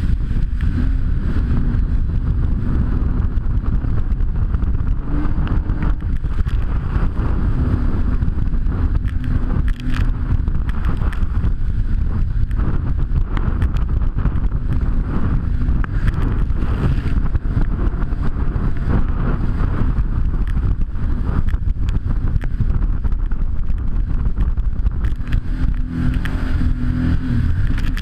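Jet ski running, heard as a loud, steady low rumble of wind and water noise on the microphone, with the engine's hum coming and going.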